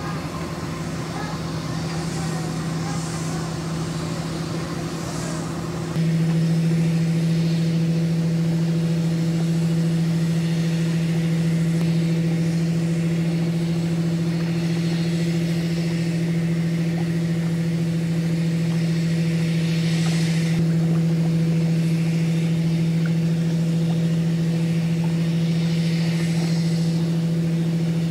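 Steady, low droning hum from a ship's engine, holding one constant pitch, that gets abruptly louder about six seconds in.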